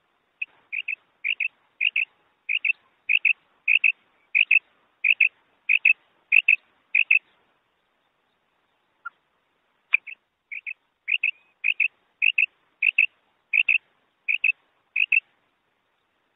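Female common quail (batair) calling: a short, high double note repeated about every 0.6 s, in two runs of about a dozen and ten calls with a pause of about three seconds between. It is the female's call played as a lure for quail hunting.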